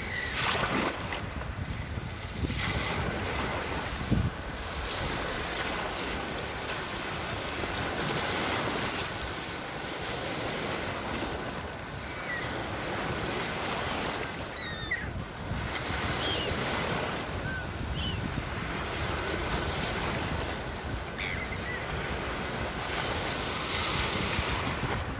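Sea waves washing onto the shore: a steady rush of surf.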